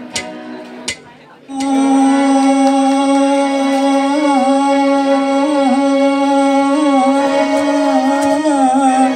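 A man singing through a PA, opening with one long held note with small turns in pitch, over a Yamaha PSR-S670 electronic keyboard. A few short, sharp keyboard notes come first, and the voice enters about a second and a half in.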